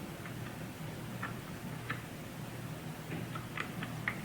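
Faint, irregular light clicks of a small screwdriver working on the screws of a laptop's case, coming more often near the end, over a steady low hum.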